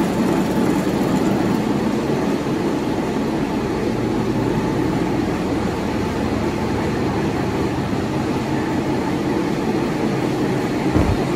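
Large 37-ton twin-turbo diesel engine running steadily, a loud even mechanical drone with no change in speed. A brief low thump comes near the end.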